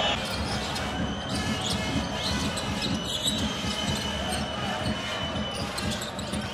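A basketball being dribbled on a hardwood court, the bounces repeating over a steady background of arena crowd noise.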